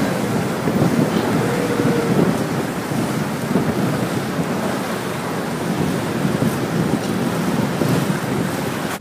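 Steady rushing noise of a passenger river boat under way: its churning wake and engine blend into one continuous sound, with wind buffeting the microphone.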